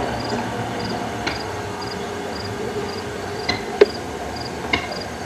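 A cricket chirping steadily, about two short high chirps a second, over a faint low hum, with a few sharp clicks, the loudest nearly four seconds in.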